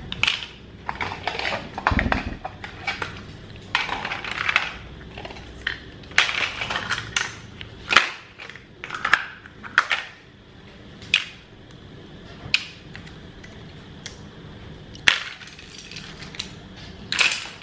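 Plastic toys being handled and knocked together: a string of short clicks, knocks and rustling scrapes, with a dull thump about two seconds in.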